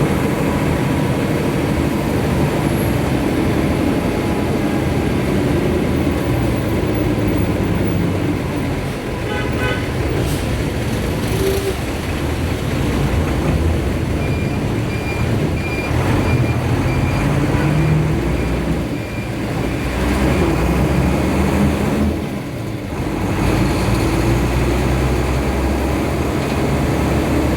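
Vehicle engine and road traffic noise during a drive, steady throughout, with a short horn toot about nine seconds in and a few seconds of repeated high beeps near the middle.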